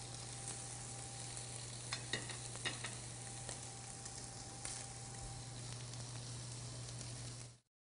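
Steaks sizzling on a ridged stovetop grill pan over a gas burner, a steady hiss over a low hum, with a few light clicks; the sound cuts off abruptly near the end.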